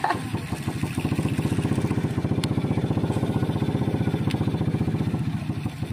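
Small boat engine running steadily, a fast even chugging.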